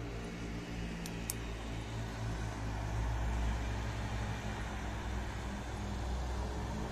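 Distant city road traffic heard from high above: a steady low rumble and hum that swells a little about three seconds in. A pair of short, high ticks sounds about a second in.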